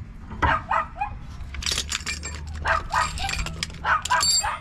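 A dog barking over and over, several short barks a second, with a steady low hum underneath.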